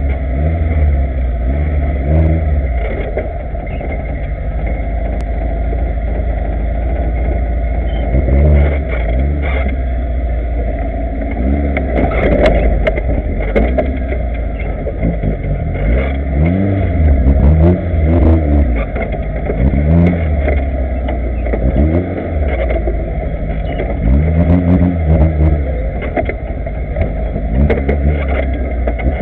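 Off-road vehicle engine running hard with a heavy low rumble, revving up and falling back again and again, with a few sharp knocks partway through.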